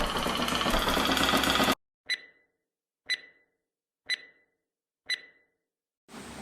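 Intro music cuts off abruptly, followed by four short electronic beeps, one a second, with dead silence between them.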